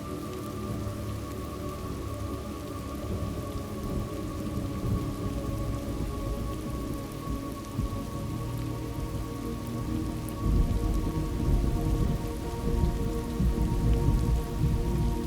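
Thunderstorm ambience: steady rain, with a deep rolling thunder rumble that swells from about two-thirds of the way in. Soft sustained tones hum underneath.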